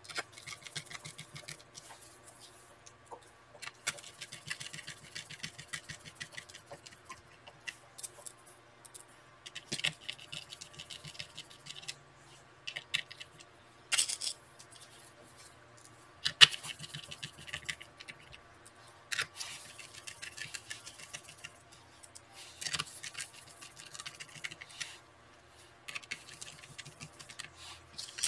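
Small hand screwdriver turning screws into a plastic laptop bottom case, in bursts of fine rapid clicking and scraping. Sharp single clicks and taps come every few seconds as the laptop and small parts are handled.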